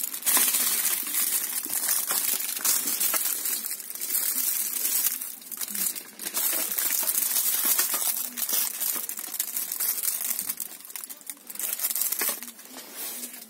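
Clear plastic bags on bottles and a shaker crinkling continuously as they are handled, with brief pauses about five and six seconds in.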